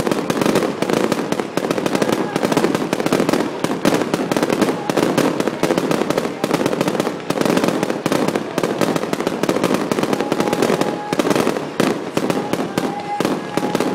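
Aerial fireworks in a dense, continuous barrage: rapid overlapping bangs and crackling with no break.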